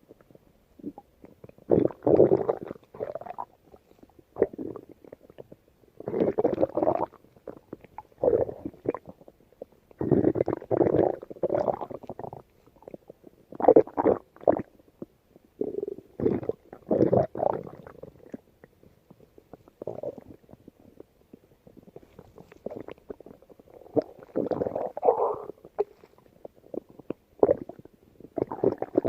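A hungry person's empty stomach growling in about ten irregular bouts, some short and some lasting a second or two, with quiet gaps between them.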